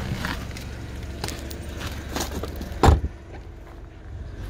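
Mini Cooper 1.6 petrol engine idling steadily, with a car door slammed shut in one heavy thump about three seconds in.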